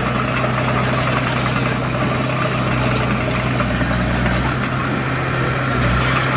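Heavy-equipment diesel engine idling with a steady low hum.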